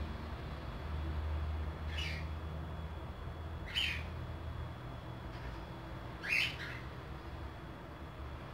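A bird giving three short, high chirps a couple of seconds apart, the last a quick double note, over a steady low hum.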